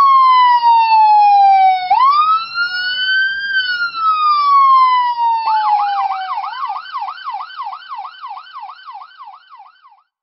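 Police siren wailing in slow rising-and-falling sweeps, then switching about halfway through to a fast yelp of about three warbles a second, which fades out near the end.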